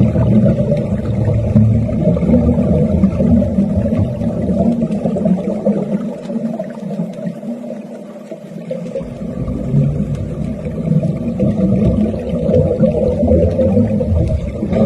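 Underwater arc welding heard underwater: a loud, low, rough rumbling crackle that fades out for a few seconds midway and then comes back.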